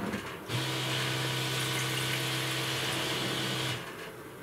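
A boat's electric freshwater pressure pump runs with a steady hum while water hisses from the galley tap, for about three seconds. It starts about half a second in and cuts off near the end.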